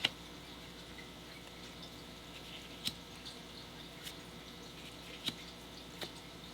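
Trading cards being handled and set down on a pile: a handful of short, light clicks and taps spaced a second or so apart, over a faint steady hum.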